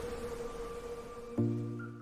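Background music: a held note, then a low chord comes in suddenly about one and a half seconds in and starts to fade out.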